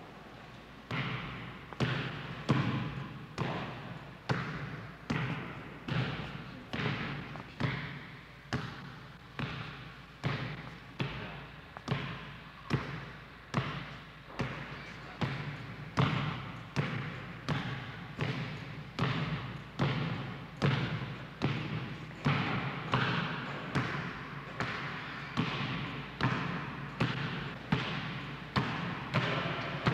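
A basketball dribbled on a hardwood gym floor, bouncing in a slow, steady rhythm of about three bounces every two seconds and echoing in the hall. The bouncing starts about a second in.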